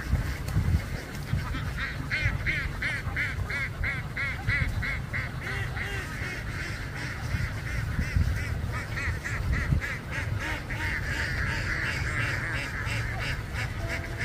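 A large flock of domestic ducks quacking, many calls overlapping, with a fast run of quacks from about two seconds in that grows denser near the end, over a steady low rumble.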